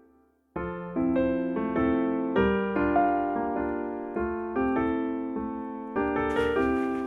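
Solo piano background music, gentle chords and notes beginning about half a second in after a short silence. Near the end a steady hiss comes in under the piano.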